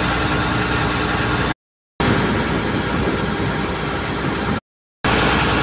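Boat engine running steadily on board a small supply boat under way. The sound drops out to silence twice, about a second and a half in and again near the end, each time for about half a second.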